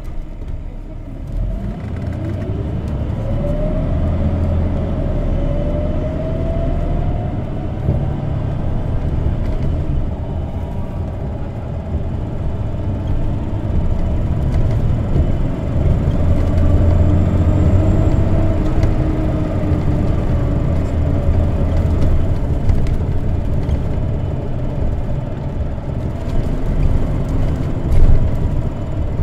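Isuzu Erga CNG city bus (PDG-LV234N2 modified) heard from inside the cabin, pulling away and accelerating hard: a rising drivetrain whine climbs twice over a low engine rumble, then it runs on at speed with a further gentle rise and fall. A brief knock stands out near the end.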